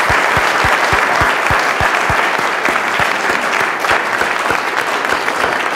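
Audience applauding, a dense steady clatter of many hands. For the first two seconds, one person's claps close to the microphone stand out, about three a second.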